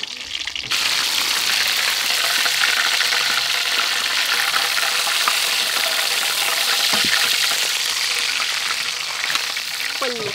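Whole scale-on fish deep-frying in hot oil in a wok: a steady, loud sizzle that starts suddenly near the beginning.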